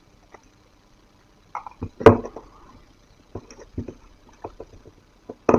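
Hands handling small plastic blind-box pieces and packaging: a sharp knock about two seconds in, then scattered light clicks and taps, with a louder knock near the end.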